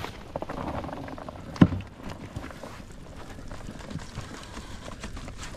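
Wet whitebait net being shaken out over a plastic crate: water dripping and splashing and the mesh rustling as the catch falls in. A sharp knock a little over a second and a half in.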